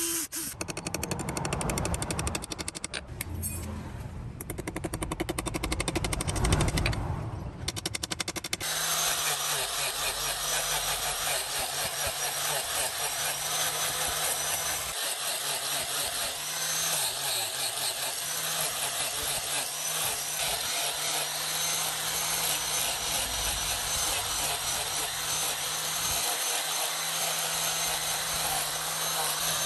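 A cordless drill bores through a knife's steel tang with a fast rattle. About eight and a half seconds in it gives way to an angle grinder with a sanding disc, running steadily with a high whine as the handle is shaped against it.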